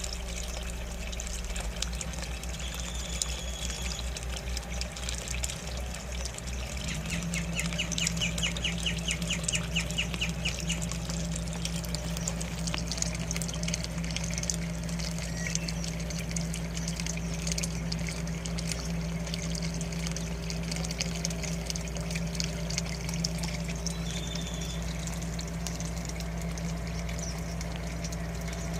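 Steady trickling of water over a low hum, with birds calling now and then and a rapid trill about eight seconds in.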